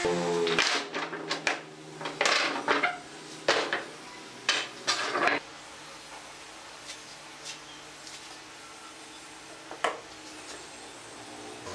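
Wooden strips and boards knocking and clattering as they are handled, with a quick run of sharp knocks over the first five seconds or so, then a few light taps. A woodworking machine's running hum cuts off right at the start.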